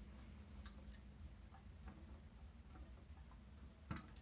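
Near silence as a toilet's flapper and tank parts are handled, with a few faint ticks and one sharp click near the end.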